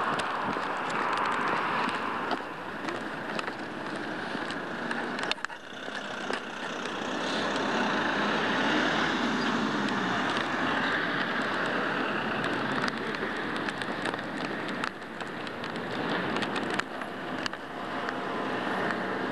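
Street traffic noise, with cars and vans running close by. A truck passes about halfway through, when the sound swells, and there are a few short sharp clicks.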